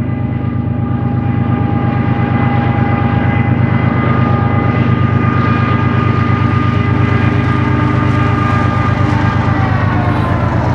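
BNSF diesel freight locomotive passing close: a heavy, pulsing engine rumble with a steady whine above it. The whine drops in pitch near the end as the locomotive goes by.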